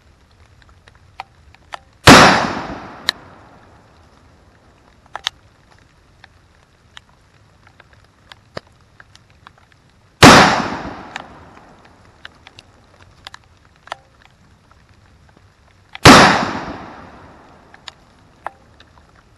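Three gunshots about six to eight seconds apart, each a sharp bang with a long echoing tail.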